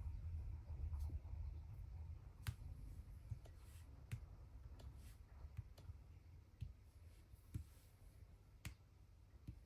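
Faint, sharp clicks at irregular intervals, about one a second, over a low hum that fades away in the first couple of seconds.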